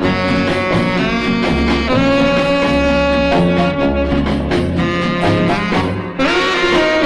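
Instrumental swing-style music led by saxophone and brass over a steady bass line, with no singing; a brighter new phrase comes in about six seconds in.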